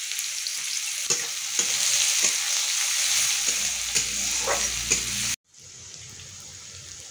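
Sliced onions sizzling in hot oil in a steel karai, with a metal spatula clicking and scraping against the pan as they are stirred. The sizzle cuts off abruptly about five seconds in, then carries on much quieter.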